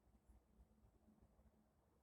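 Near silence: faint background rumble.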